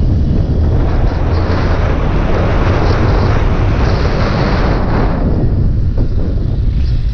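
Wind rushing over the microphone on a moving Honda Bros 160 motorcycle, with its single-cylinder engine running underneath. The wind noise eases about five seconds in.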